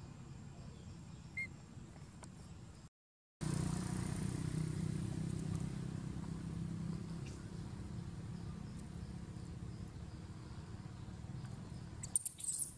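Steady outdoor background rumble, like distant traffic. It drops out for half a second about three seconds in and comes back louder. Near the end there is a short, sharp, high crackle.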